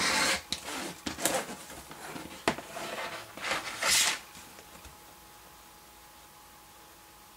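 A rotary cutter slicing fabric along an acrylic quilting ruler on a cutting mat, with the ruler and cutter shifted across the mat. This makes several short scraping sweeps and a sharp click about two and a half seconds in, then quiet room tone from about halfway.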